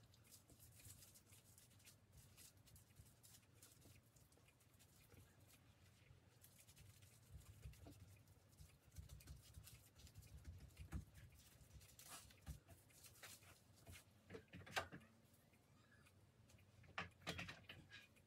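Near silence: low room hum with faint scattered rustles and light taps from hands working a sushi roll on a board, a few slightly louder taps in the second half.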